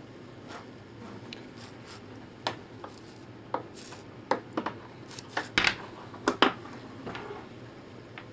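A Lucas wiper drive cable, with its spiral-wound wire rack, being handled on a plywood bench: irregular metallic clicks and knocks against the wood, loudest about five and a half and six and a half seconds in.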